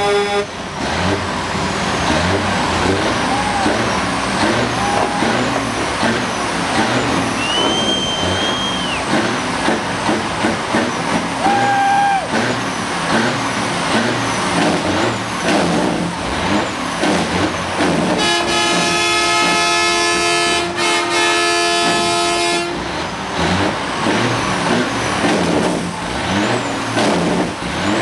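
Diesel semi trucks running, with a truck air horn blast cutting off right at the start and another held for about four seconds past the middle.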